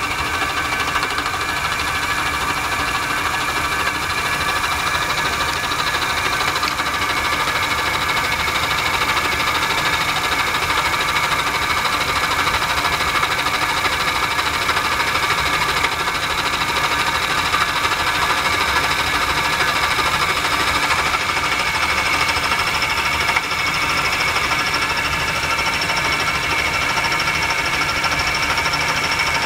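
Milling machine running steadily with an indexable carbide cutter taking a cut across new brake-lining material, a continuous whine with several held tones.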